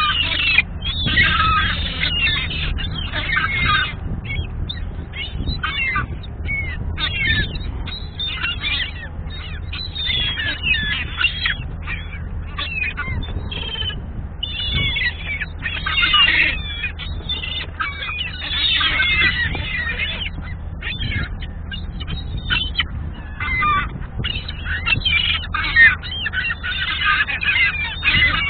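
A flock of gulls, adults and brown juveniles, calling over and over while competing for food. Many calls overlap in clusters that swell and fade, the busiest in the first few seconds, about halfway through, and near the end.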